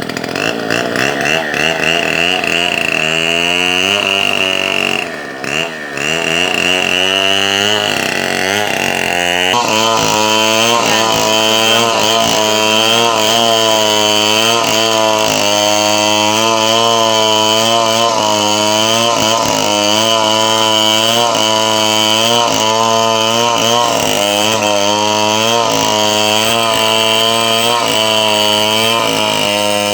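Gasoline chainsaw running, its engine revving up and down for the first several seconds, then held at high revs, the pitch wavering slightly as it cuts wood.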